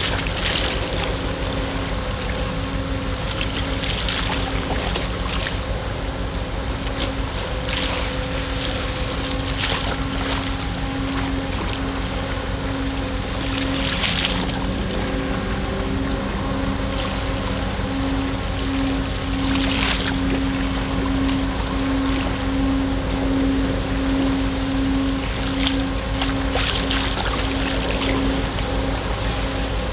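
Steady low drone of a ship's engine, growing somewhat stronger in the second half, with short splashes of water every few seconds.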